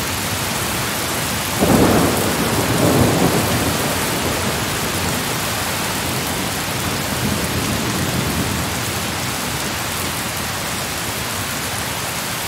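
Steady rain with a roll of thunder about two seconds in and a fainter rumble of thunder around seven to eight seconds in.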